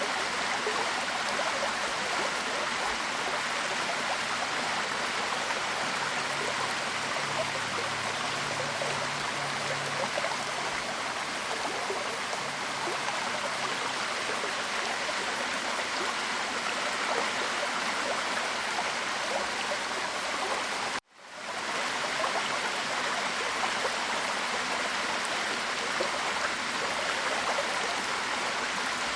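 Waterfall: a steady rush of falling water. It cuts out suddenly for a moment about two-thirds of the way through, then swells straight back.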